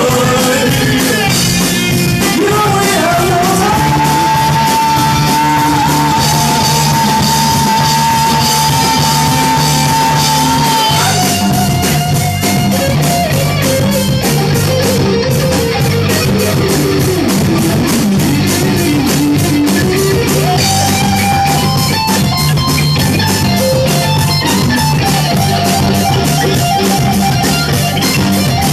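Loud hard-rock music: electric guitar and drum kit with a steady beat, and a long high note held for about seven seconds in the first half, with singing in places.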